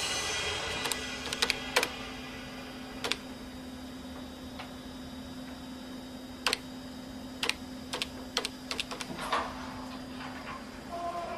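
Irregular clicks of someone typing and clicking at a desktop computer, in short clusters, over a steady low hum that starts about a second in and stops near the end.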